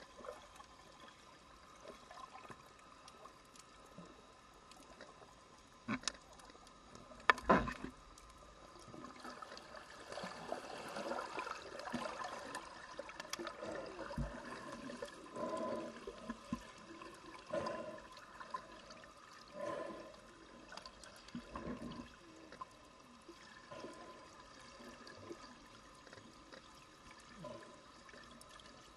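Muffled underwater water noise picked up by a submerged camera, with bubbling and gurgling swirls as a swimmer kicks near the surface. Two sharp knocks come about six and seven seconds in.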